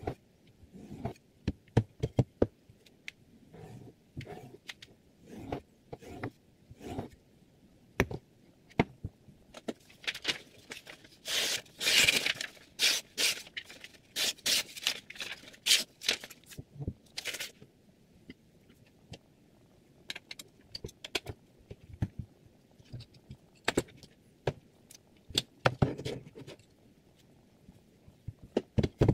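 Clicks, knocks and scraping from a Hapstone T1 clamp-type knife sharpening jig and a steel chef's knife being handled. There is a dense run of sharp scraping strokes in the middle.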